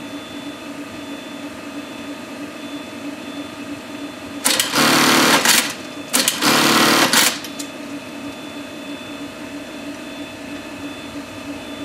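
Juki industrial sewing machine running at speed in two short stitching runs of about a second each, close together near the middle, over a steady electric hum.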